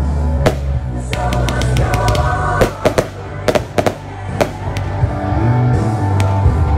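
Consumer firework compacts (cakes) firing and bursting overhead, a string of sharp bangs and crackles, over loud music with a drum beat.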